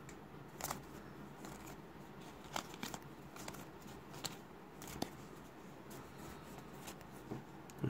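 Topps trading cards being flipped through one at a time in the hands: faint, scattered card clicks and slides over a quiet room.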